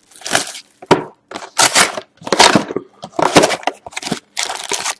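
Cardboard box of hockey cards being opened and its card packs pulled out: a quick series of crackling, rustling bursts.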